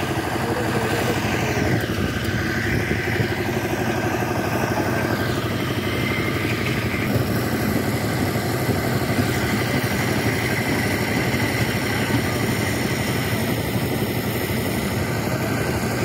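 Engine of a trailer-mounted asphalt drum mixer running steadily.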